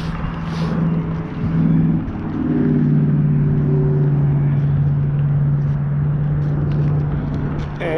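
An engine running steadily with a low hum that steps down slightly in pitch about two seconds in.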